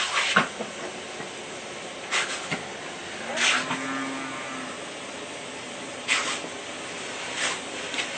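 A dog gives one short whine-like call with a steady pitch, about three seconds in, during a bath. It sounds over a steady hiss, with several brief noisy scuffling or splashing bursts.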